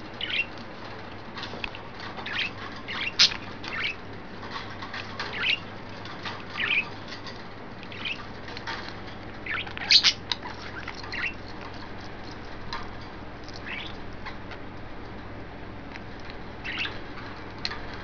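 Pet budgerigars chirping in short, scattered calls, with a few louder, sharp ones about three seconds in and again about ten seconds in, and fewer calls after that.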